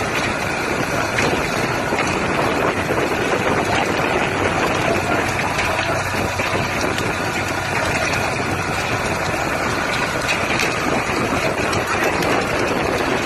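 Boat engine running steadily at idle.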